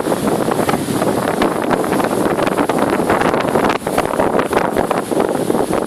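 Noisy sea surf mixed with wind buffeting the microphone: a loud, steady rushing with crackles throughout.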